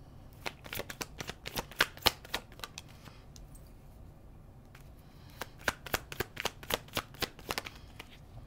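Tarot deck being shuffled by hand: two runs of quick, sharp card snaps, about five a second, the first from about half a second in to nearly three seconds, the second from about five and a half seconds to nearly eight, with a pause between.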